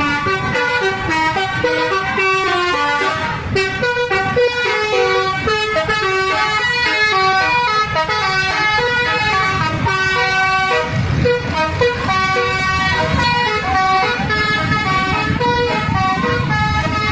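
Bus telolet horn, a multi-trumpet air horn, playing a quick tune of short stepped notes over and over. A bus engine rumbles underneath, heavier in the last third.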